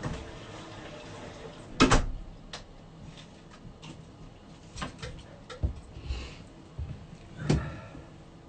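Knocks and clunks of a person coming back into a small room and moving about. The loudest is a sharp double knock about two seconds in, followed by three or four softer ones and a brief hiss.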